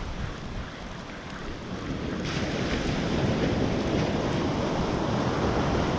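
Ocean surf breaking and washing on a beach, with wind buffeting the microphone; the wash grows louder about two seconds in.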